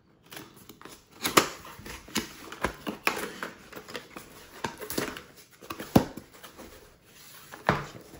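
Cardboard box and its packaging handled by hand as it is opened: flaps and an inner cardboard tray are pulled and slid out. Irregular knocks, scrapes and rustles, with the sharpest knocks about a second and a half in and about six seconds in.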